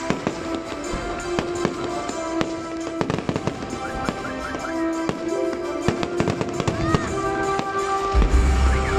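Fireworks display: aerial shells bursting with a rapid run of bangs and crackling pops. Music with sustained notes plays underneath, and a deep rumble comes in near the end.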